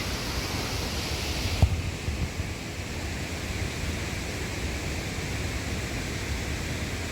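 Steady rush of the Putna waterfall's fast water over rocks, with wind gusting on the microphone. About a second and a half in there is a thump, and the sound turns suddenly duller, losing its high hiss.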